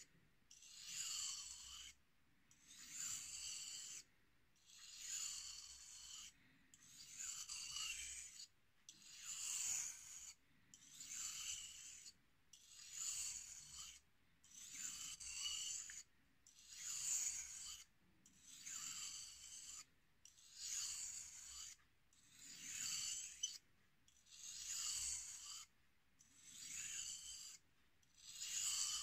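Carving knife blade scraping across a wet combination whetstone in edge-trailing, strop-like strokes, a regular rasp about once every two seconds. These light backside strokes are the final stage of the work on the stone.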